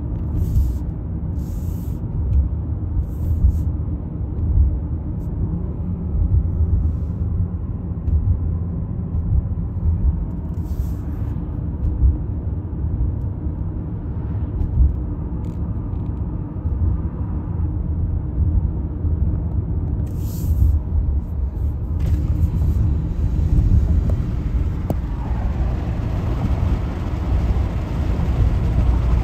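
Car driving on a paved road heard from inside the cabin: a steady low rumble of tyres and engine, with a little more hiss in the last few seconds.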